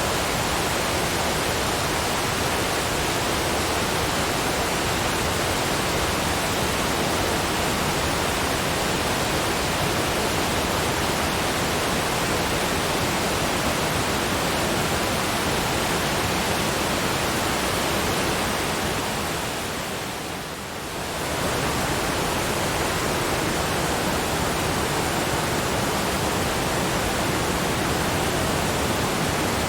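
Waterfall rushing as a steady, even hiss. It fades down briefly about two-thirds of the way through, then comes back to full level.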